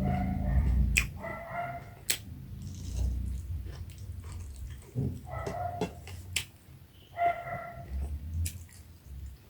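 Close-up eating sounds: sharp clicks and smacks of chewing fish and rice. A short, high-pitched whine comes four times, about every two seconds.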